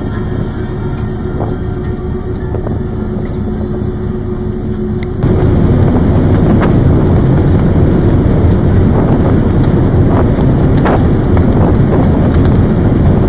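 Icebreaker's engine humming steadily under the rush of water along the hull. About five seconds in, this jumps to a louder rushing of churned propeller wake and wind on the microphone at the stern, with a few sharp knocks.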